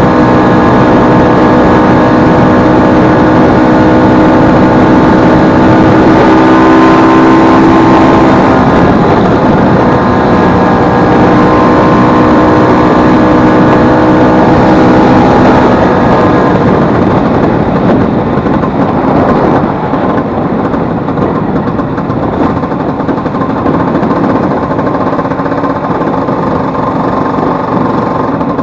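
Vespa 150 scooter's single-cylinder two-stroke engine running steadily; its pitch shifts a little about a third of the way in, and past the halfway point it eases off to a quieter, lower run.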